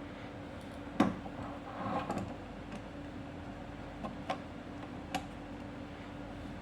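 Clicks and taps of small metal parts of a door lock being handled: one sharp click about a second in, then a soft rustle and a few lighter ticks, over a steady low hum.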